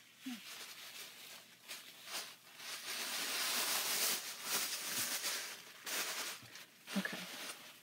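Rustling and handling noise with scattered soft clicks, as haul items and their packaging are moved about and picked up.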